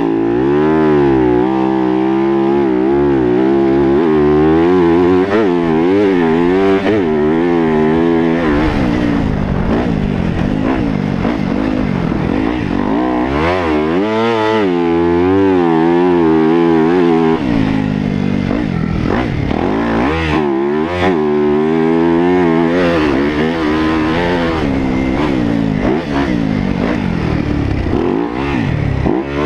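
Yamaha YZ250F's single-cylinder four-stroke engine being ridden hard on a motocross track, revving up and down repeatedly through the gears. In two stretches the engine note drops back before it climbs again.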